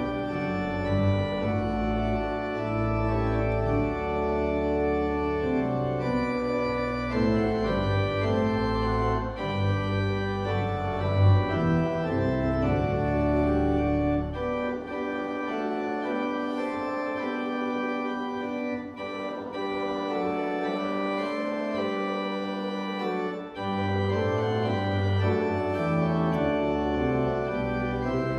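Church organ playing slow, sustained chords. The deep pedal bass drops out about halfway through and comes back near the end.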